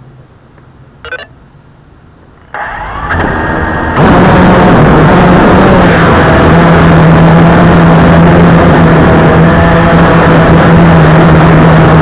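Blade 350QX2 quadcopter's four brushless electric motors and propellers spinning up in steps, then running loud and steady with a low hum, as picked up by the camera mounted on the aircraft. A brief sound comes about a second in, before the spin-up.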